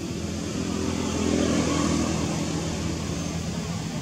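A motor vehicle driving past on the road, its engine hum getting louder to a peak around the middle and then easing off.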